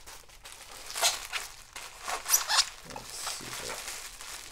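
Bubble wrap rustling and crinkling as it is handled, in a few short bursts about one and two seconds in.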